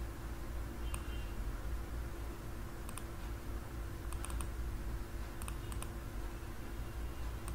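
Computer mouse clicking, scattered single clicks and quick double-clicks, over a steady low electrical hum.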